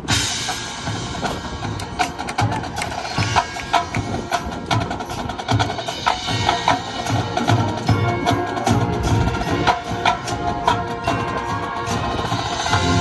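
Marching band playing, with percussion to the fore: rapid sharp strikes over held notes.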